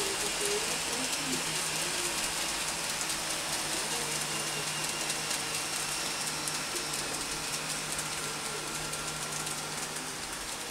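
KATO N-gauge E4 Series Shinkansen model train running on curved track: a steady hiss of wheels on rail with fine, rapid clicking and a low hum, getting slightly quieter near the end.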